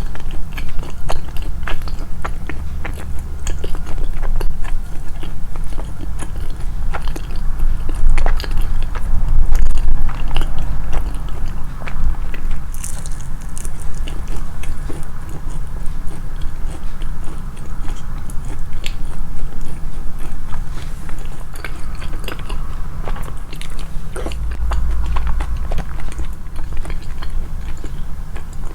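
Close-miked chewing and biting of food, with many small irregular crunches and wet clicks.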